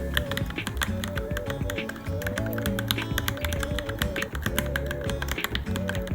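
Fast, irregular keystrokes on a Varmilo Minilo mechanical keyboard, continuous typing, over background music with a repeating melody.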